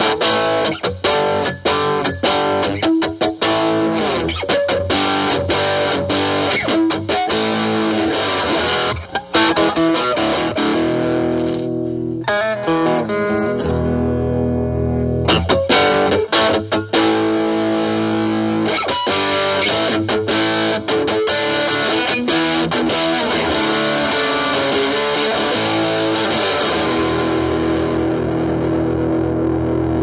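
Single-coil Stratocaster electric guitar played through an Electro-Harmonix Germanium 4 Big Muff Pi with both its overdrive and distortion sides on, into a Marshall Valvestate amp's clean channel. Quick picked phrases for the first half, then long distorted notes held and left to ring, their treble fading near the end.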